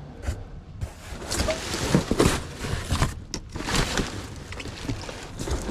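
Junk being rummaged through in a dumpster: irregular rustling and clattering of plastic and other discarded items being moved, with a few sharp knocks.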